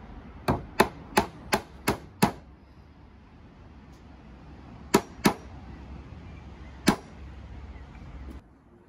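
Claw hammer driving pins through softwood door boards: a quick run of six sharp strikes, about three a second, then a pair of strikes and a last single strike a couple of seconds after that.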